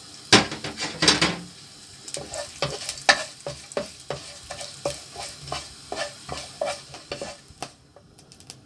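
Wooden spatula stirring and scraping cumin seeds, cinnamon, cloves and a bay leaf around a nonstick pan as they fry in hot oil. The spatula makes repeated scrapes and taps over a light sizzle, and it goes quieter near the end.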